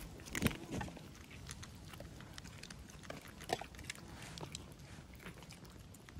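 Cats chewing food: a run of short, irregular crunches and clicks, loudest about half a second in and again around the middle.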